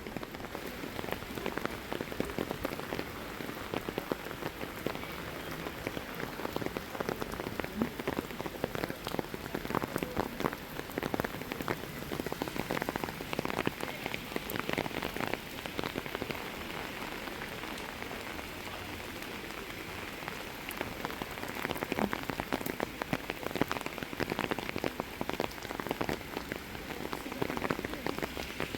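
Steady rain falling, with dense, irregular patter of individual drops close by.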